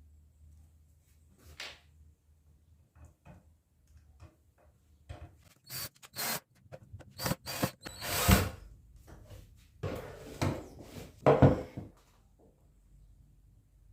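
Tools and wooden pieces being handled on a workshop bench: a string of sharp knocks and short scrapes, sparse at first and coming thick and loud from about five to twelve seconds in.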